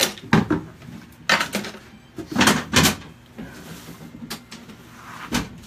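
A series of sharp knocks and thuds, irregularly spaced and several in quick pairs, from a rigid mold shell being knocked and pried loose from the sculpt during demolding.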